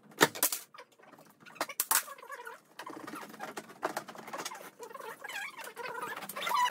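Clicks and knocks as the plastic front cover of a roller-shutter box is handled and pried open, followed from about three seconds in by a run of high, wavering squeaks.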